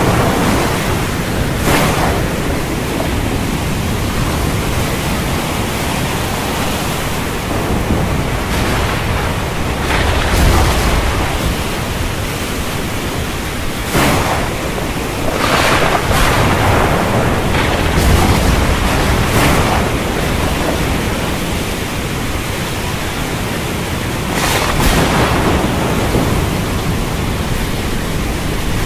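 Steady heavy rain with thunder: several sharp cracks spread through it, and deeper low rumbles about ten and eighteen seconds in.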